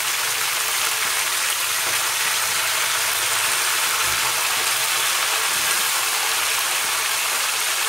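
Chopped raw vegetables frying in hot oil in an aluminium kadai: a steady sizzle.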